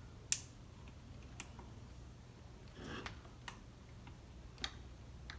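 Light, scattered clicks and taps of small chainsaw parts and hand tools being handled on a workbench, about six in a few seconds, the sharpest about a third of a second in, over a faint steady low hum.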